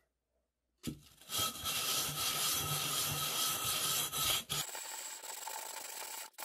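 The freshly cut rim of a glass wine bottle being rubbed in circles on sandpaper, a gritty scraping that grinds the sharp cut edge smooth. It starts about a second in and turns quieter about four and a half seconds in.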